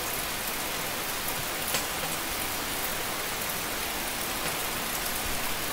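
A steady hiss of background noise, even throughout, with a few faint ticks.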